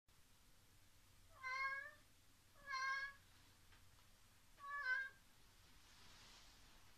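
Domestic cat meowing three times, short calls spaced a second or two apart.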